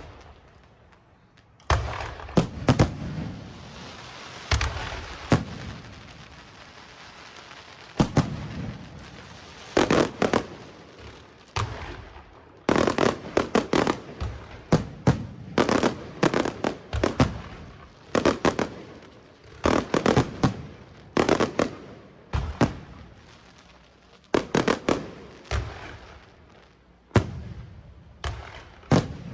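Fireworks going off in quick volleys: many sharp bangs, often several close together, with crackling in between.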